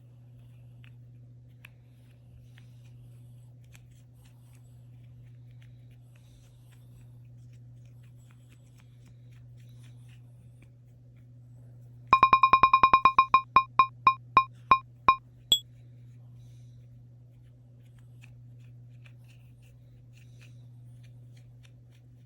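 A run of about fifteen electronic beeps at one pitch, fast at first and slowing down, over about three seconds about halfway through. A faint steady low hum runs underneath.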